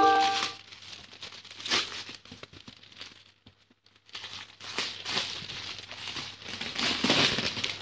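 Clear plastic wrap crinkling as hands pull and tear it off a boxed blender, in irregular rustles with a pause of about a second midway.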